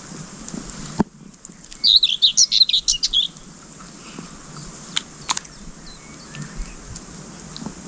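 A small songbird singing one short, fast warbling phrase of high chirps about two seconds in, followed by a few sharp clicks.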